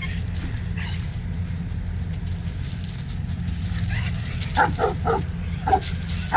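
German Shepherd barking on the leash, a quick run of about five sharp barks starting about two-thirds of the way in, over a steady low hum. This is reactive barking at other dogs.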